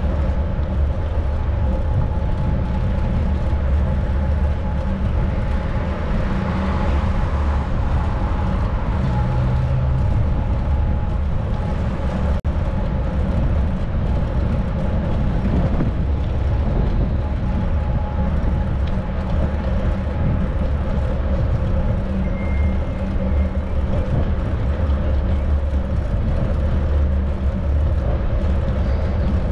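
Steady wind rumble buffeting the microphone of a camera riding on a moving bicycle, with a faint steady hum under it. The sound cuts out briefly about twelve seconds in.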